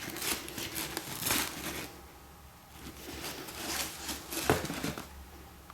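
Shoebox packaging crinkling and rustling as it is handled, in two stretches, with a sharp knock about four and a half seconds in.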